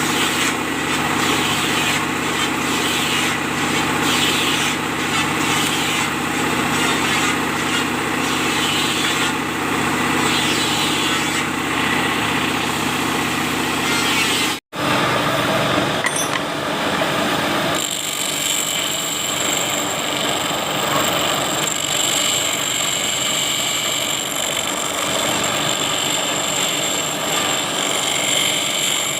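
Power tool running steadily, grinding steel planer-knife stock to shape a profile blade. The sound breaks off briefly about halfway and resumes with a steady high whine over the grinding noise.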